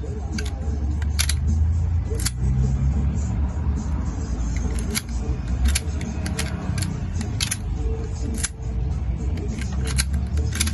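A 2007 Honda Civic's four-cylinder engine idling steadily as a low rumble, with sharp clicks at uneven intervals over it.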